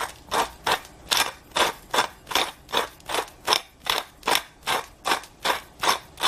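Hand-twisted pepper mill grinding peppercorns: a gritty crunch with each twist, evenly repeated about two to three times a second.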